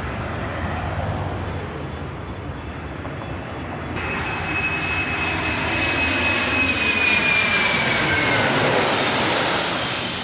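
Boeing 737-300's CFM56-3 turbofan engines passing low overhead on landing approach. From about four seconds in, a high fan whine slowly falls in pitch beneath a rising jet roar, which is loudest near the end and then begins to ease.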